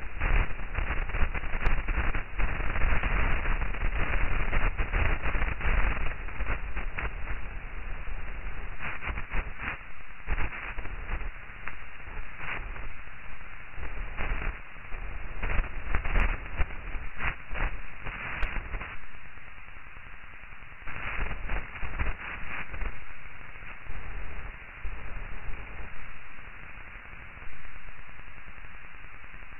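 Radio-like static hiss that swells and fades irregularly, muffled as if heard over a narrow radio link. It is loudest in the first half and softer in the last third.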